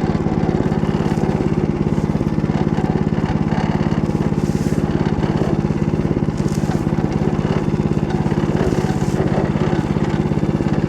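Motor Sich walk-behind tractor's engine running steadily under load while its rotary tiller mills stubble, with an even, rapid firing beat.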